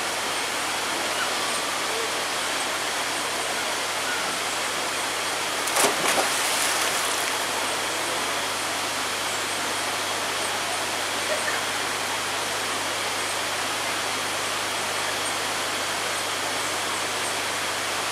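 A person jumping into a swimming pool: one sharp splash about six seconds in, with water churning for a second or so after, over a steady hiss.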